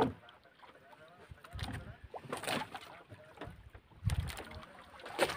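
Water splashing and knocking against a wooden outrigger boat's hull as a hooked tuna is hauled up alongside with a gaff, with a sharp knock at the start and dull thumps about 2 and 4 seconds in.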